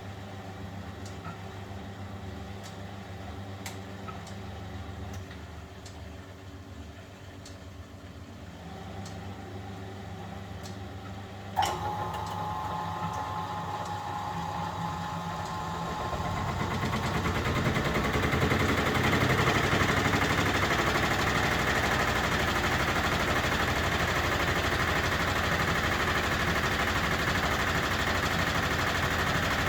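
1971 Constructa Garant 491 washing machine running quietly with a hum and a few faint ticks. About halfway there is a sharp click, and the drum motor starts up. It builds over several seconds to a louder, steady running.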